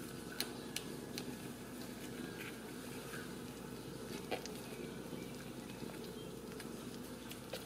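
Newborn Ragdoll kittens suckling at their mother, with scattered small wet clicks and smacks over a steady low rumble.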